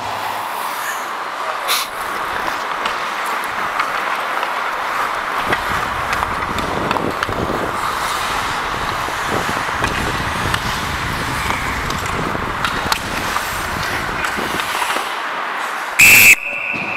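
Steady rink noise of play on the ice. Near the end comes one short, loud blast of a referee's whistle, the signal that stops play.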